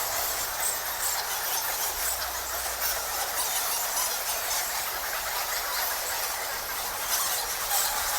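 A colony of bats squeaking in a cave: a dense, continuous chatter of many short, high squeaks overlapping.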